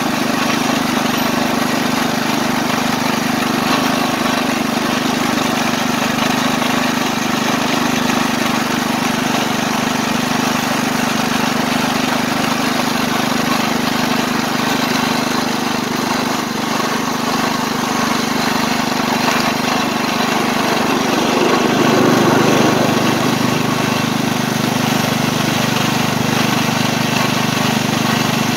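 Small engine of a ride-on scale locomotive running steadily as it pulls along the track. About three-quarters of the way through, the engine note shifts and gets slightly louder.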